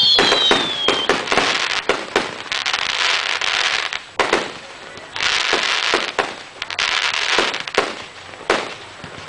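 Fireworks display: a run of sharp bangs and long bursts of crackling, with a falling whistle in the first second.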